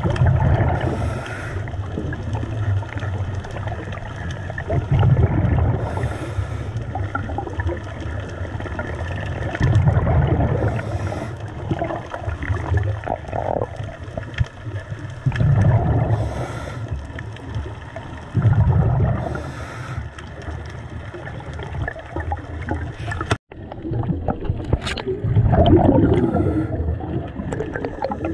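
Underwater: a scuba diver breathing through a regulator, a hiss on each inhale and a rumbling gush of exhaled bubbles, repeating about every four to five seconds.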